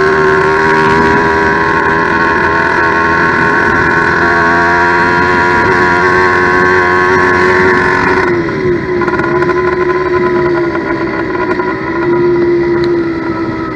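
Two-stroke motorized-bicycle engine (a steel-sleeve big-bore kit, 89.7cc) running steadily at a fairly high speed; about eight seconds in it drops back and runs unevenly, its pitch dipping and recovering. A freshly built engine on its first runs, with the carburetor still being adjusted.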